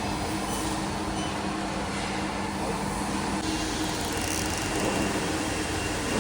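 Bubble film making machine running while perforating two-layer bubble wrap: a steady mechanical hum over an even noise. A low drone in the hum drops out about three and a half seconds in.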